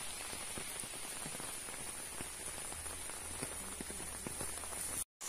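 Steady rain falling and pattering on the ground, foliage and roofs, with scattered small drips; the sound breaks off briefly near the end.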